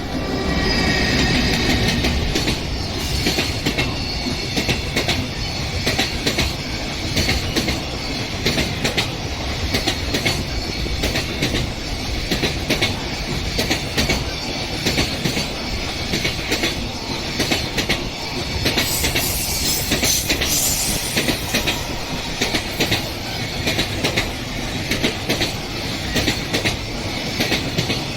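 A train passing close by, its wheels clattering rhythmically over the rail joints, with high wheel squeal over the top. It starts suddenly and loud, and there is a brief high hiss about two-thirds of the way through.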